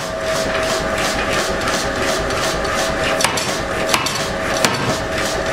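Power forging hammer running and striking glowing steel on a die block in rapid, even blows, about four a second, over a steady machine hum. A few sharper metallic clanks stand out a little past the middle.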